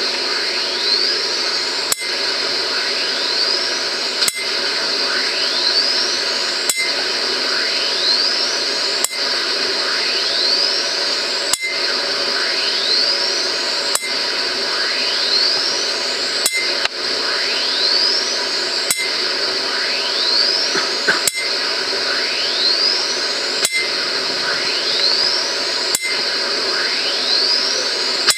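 High-voltage capacitor charger and discharge in a repeating cycle: a thin electronic whine rises steeply in pitch as the charge builds, then a sharp snap as it discharges. The cycle repeats about every two and a half seconds over a steady hiss.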